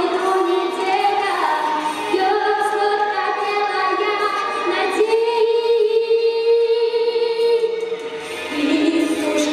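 A boy singing a song into a microphone over backing music, holding one long note in the middle.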